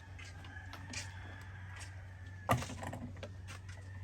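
Handling noise: a few light clicks and one sharp knock about two and a half seconds in, over a steady low hum.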